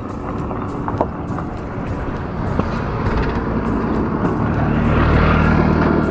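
A passing engine's rumble growing steadily louder, with a low hum joining in and the sound peaking about five seconds in.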